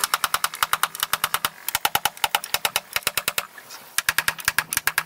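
Hammer striking nails into the wooden bow deck board of a boat, in rapid, even taps about six a second, with a brief pause about three and a half seconds in before the tapping resumes.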